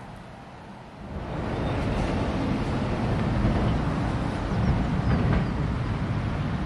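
Steady noise of road traffic passing close by, which jumps much louder about a second in.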